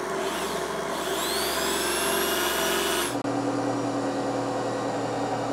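Belt-driven electric motor and generator spinning, with a whine that rises in pitch as they speed up. About three seconds in the sound cuts to a steady lower hum of the rig running.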